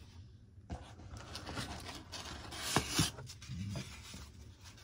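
Rustling and rubbing of packing wrap and cardboard as hands shift wrapped items inside a shipping box, with irregular small crinkles and a louder rustle about three seconds in.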